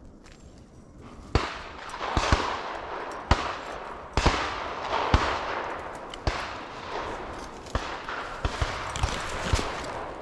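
Dry twigs and branches snapping and brush scraping as a person pushes through a thick thicket, with dry leaves crunching underfoot. It starts about a second and a half in, with sharp irregular snaps over a steady rustle.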